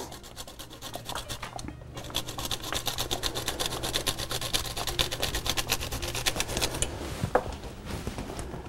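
Garlic cloves grated on a fine stainless-steel rasp grater: a quick, even run of rasping strokes.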